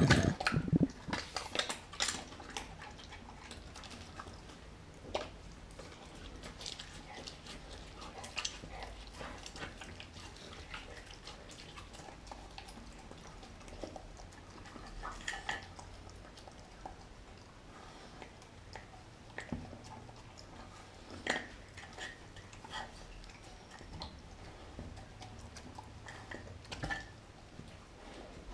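German Shepherd–Chow Chow mix dog eating raw meat and cooked pork from a glass bowl: irregular chewing and clicking, busiest in the first couple of seconds, then single clicks every second or few.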